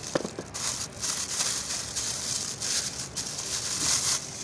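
Plastic wrapping crinkling and rustling as a bagged part is handled and lifted out of a small cardboard box, in several bursts with a few light clicks near the start.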